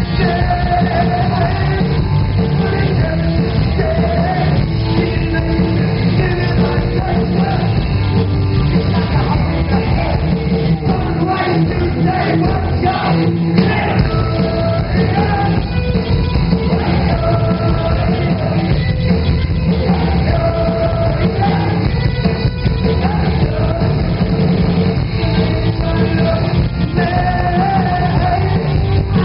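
Live rock band playing loud and without a break: electric guitar, bass and drums under a male lead singer. Heard from the audience in a large hall.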